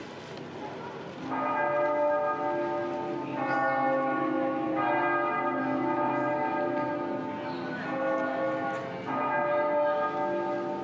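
Bells ringing: about five strikes, each tone ringing on and fading into the next.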